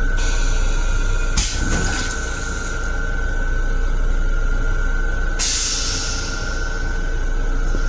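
Flush cycle of an LIRR M7 railcar's stainless-steel toilet: a rushing hiss of water starts at once, a short louder rush comes about a second and a half in, and a second strong rush about five seconds in fades out. A steady whine from the railcar runs underneath.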